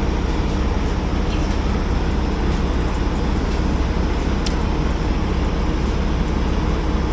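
Steady low vehicle rumble, unchanging throughout, with a faint click about four and a half seconds in.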